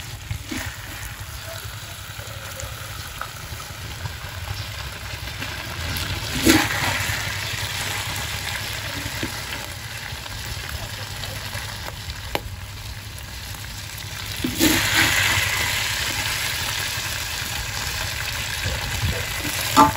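Stir-fried eel and ginger sizzling in a hot steel wok as a metal spatula scrapes and scoops it out, with louder swells of sizzling about six seconds in and again at about fifteen seconds, and a few sharp clinks of the spatula.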